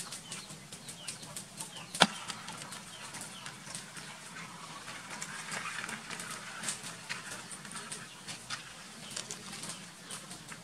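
Light clicks and taps of a hard shell and claws against a plastic bucket, with one much louder sharp knock about two seconds in.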